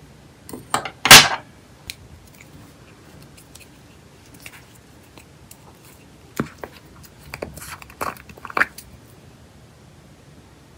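Nail tools clacking down on a tabletop about a second in, then the screw lid of a small plastic gel jar twisted open with scraping clicks between about six and nine seconds.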